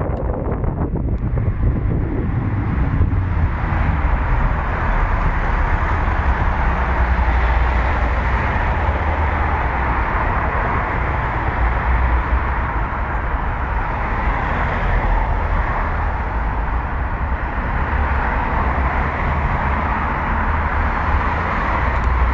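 Steady wind rushing and buffeting over the microphone, with road and tyre noise, from an electric scooter being ridden at speed.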